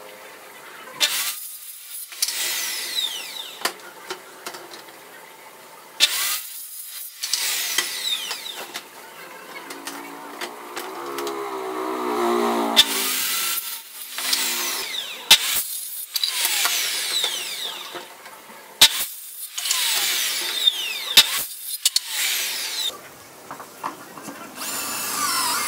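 Bosch circular saw started repeatedly to cut wooden boards, its motor pitch sliding down each time the trigger is released, with short pauses between runs. After that comes a cordless drill boring pocket holes through a pocket-hole jig.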